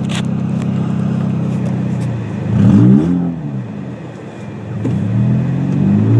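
Car engine running steadily, then revving up sharply about two and a half seconds in, dropping back, and climbing again near the end.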